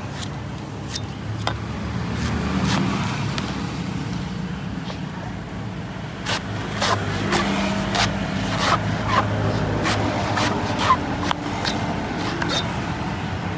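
Large knife chopping and shaving the husk off a young coconut on a wooden chopping block: a run of sharp chops, sparse at first and coming quicker after about six seconds. A steady traffic hum runs underneath.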